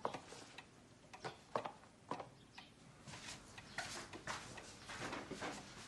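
Faint, scattered clicks and light knocks with soft rustling from a quiet room, the sort of small handling noises of someone moving about a home.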